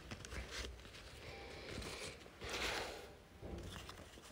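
Faint rustling of a sheet of paper being handled and folded, with a few light clicks and a louder rustle about two and a half seconds in.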